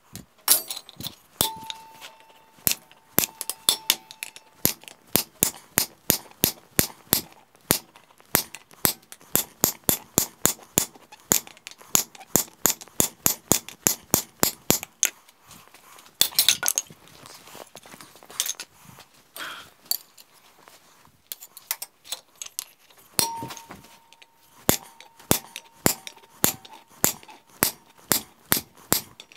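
Hammer blows on a handled hot-cut chisel driven into a glowing square steel bar on an anvil: sharp metallic clinks at about three a second, splitting the bar down its centre. A few blows leave a short clear ring, and the striking thins out for several seconds midway before resuming.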